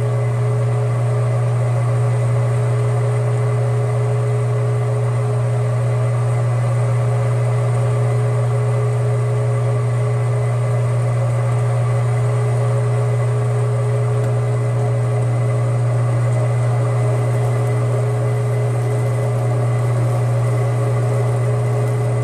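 Metal lathe running steadily, a loud low hum from its motor and drive with a steady whine above it, as the spindle turns the work for a light threading scratch pass.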